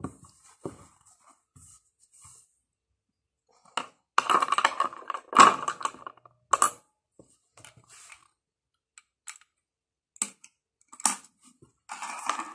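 Small metal parts being handled at an industrial sewing machine's needle plate while a hemmer presser foot is swapped in: scattered clicks and clatter, busiest from about four to seven seconds in and again near the end. The machine itself is not running.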